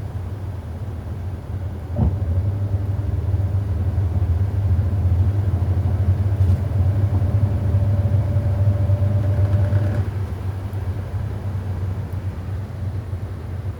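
Hoover 800RL top-loading washing machine running with a steady low hum. About two seconds in there is a click and the machine grows louder, with a faint whine over the hum, then it eases back about ten seconds in.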